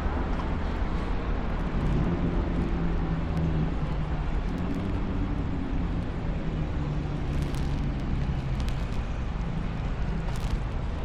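Street traffic noise with a motor vehicle's engine running close by, its low hum holding steady from about two seconds in until near the end, with a few faint clicks.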